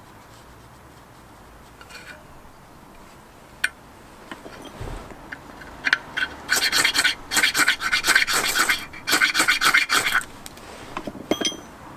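Faint scratching as the charred end of a hemp rope wick is fluffed up, then from about six seconds in a ferrocerium rod scraped hard again and again with a steel striker for about four seconds until the wick catches.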